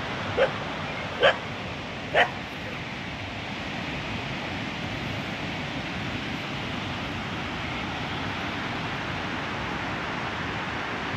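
A dog barking three short barks about a second apart, then stopping, over a steady background hiss.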